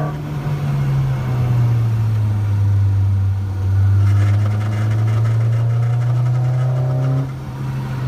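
Toyota MR2 (ZZW30) with its 2ZZ 1.8-litre four-cylinder engine running steadily; the engine note dips slightly a few seconds in and then rises back.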